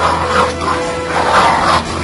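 Background music with small dogs barking over it.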